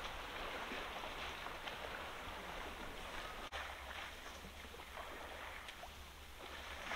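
Outdoor ambience at the water's edge: a steady wash of water and wind noise with a low wind rumble on the microphone, and faint splashing from elephants wading and calves rolling in the mud. A very brief dropout about halfway through.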